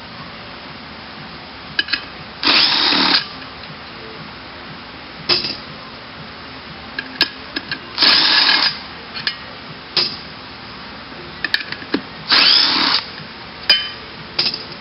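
Handheld power tool spinning out the bolts that hold down the pump of a CVT transmission, running in three short bursts of about half a second each, with clicks and knocks between them.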